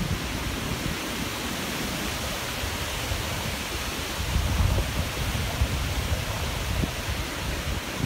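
Strong gusting wind rushing through leafy trees, with low buffeting of wind on the microphone that swells about halfway through.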